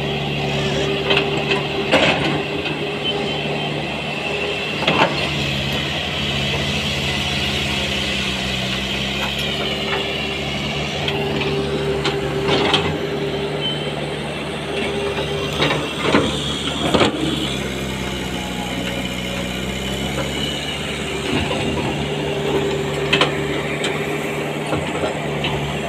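Heavy diesel machinery running steadily, its engine pitch shifting a little now and then, with several sharp metallic clanks and knocks over the top.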